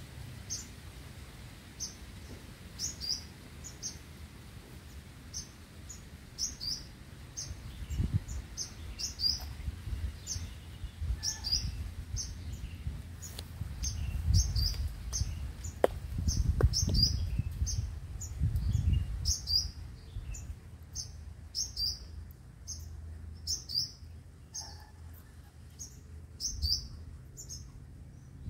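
A small bird calling over and over with short, high, downward-slurred chirps, about one or two a second. Low rumbles come and go in the middle.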